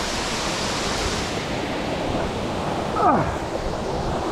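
Morans Falls pouring down, a steady rush of falling water. About three seconds in, a brief cry slides steeply down in pitch over the noise.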